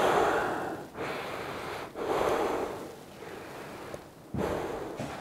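A man breathing out heavily through his mouth in long, breathy sighs, four of them about a second apart, the last near the end.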